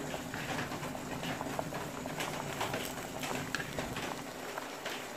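Water boiling under a stainless-steel steamer pot while par-cooked sticky rice is spooned into the steamer basket, with an irregular patter of light taps and clicks throughout.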